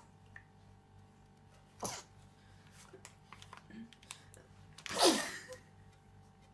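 A baby with a runny nose sneezing: a small, short sneeze about two seconds in, then a louder sneeze about five seconds in that drops in pitch as it ends.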